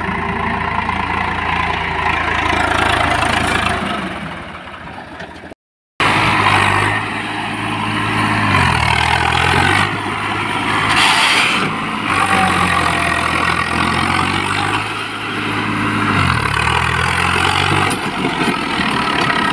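Swaraj 855 tractor's three-cylinder diesel engine running as the tractor drives in circles, its note twice dipping in pitch and climbing back, with a short break in the sound about five seconds in.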